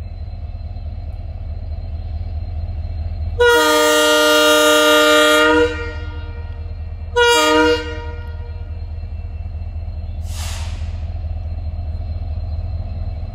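WDP4D diesel-electric locomotive approaching, its EMD two-stroke engine rumbling steadily and growing louder. It sounds its multi-tone air horn in one long blast of about two seconds, then a short blast a couple of seconds later.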